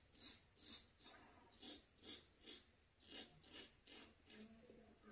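Faint short scrapes of a razor cutting stubble through shaving lather, upward strokes on the cheek. There are about ten strokes, roughly two a second, in groups of three.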